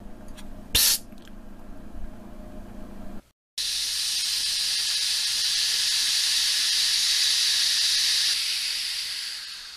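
Steam hissing, a loud steady high-pitched hiss that starts suddenly a little over three seconds in and fades out near the end. Before it, a low hum with one short sharp burst about a second in.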